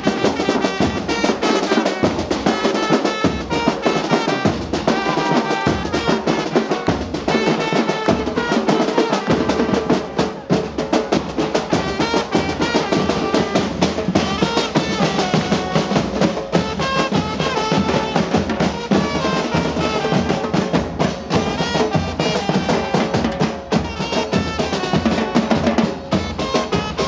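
Murga street band playing: bombos con platillos (bass drums with cymbals mounted on top) beating a fast, steady rhythm while a trumpet plays a melody over them.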